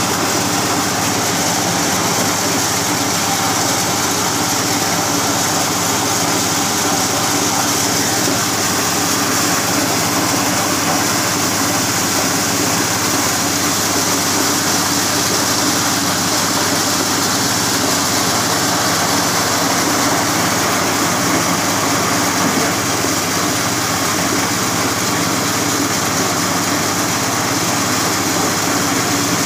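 Engine-driven corn sheller running steadily, shelling corn as cobs are fed in.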